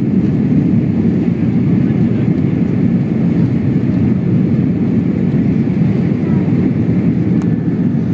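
Steady low roar of a Boeing 747's engines and rushing air, heard from inside the passenger cabin during the take-off climb.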